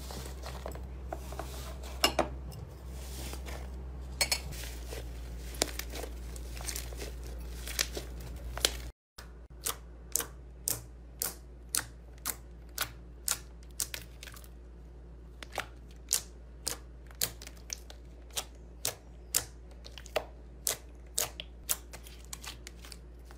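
Hands squeezing and kneading slime, with soft crackles and occasional sharp clicks. After a cut, clear glossy slime is pressed and folded, and it makes crisp clicking pops about twice a second.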